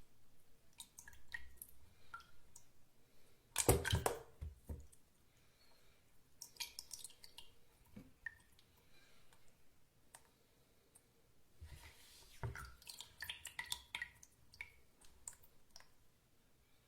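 Water dripping: irregular single drops and small splashes, with a loud cluster about four seconds in and another run of drops around twelve to fourteen seconds.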